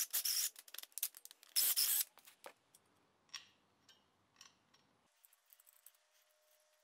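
Drill re-drilling a bolt hole in a steel anvil stand, running in short spurts with scraping over the first two seconds. A few faint metal clicks and taps follow as a bolt and hold-down clamp are fitted by hand.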